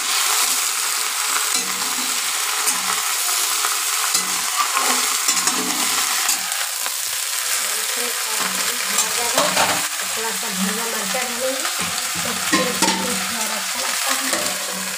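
Okra frying in hot oil in a metal kadhai, sizzling steadily, while a metal spatula stirs it with scattered scraping clicks against the pan.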